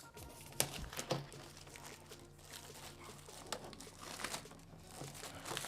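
Product packaging being torn open and crinkled by hand, irregular crinkling with a few sharp rips.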